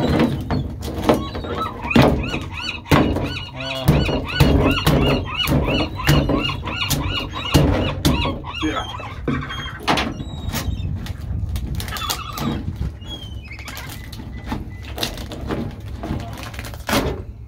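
Repeated hard thunks and cracks as Dungeness crabs are smashed down onto a crab-cleaning stake and their shells torn off. Over the first half, a rapid run of short high squealing calls.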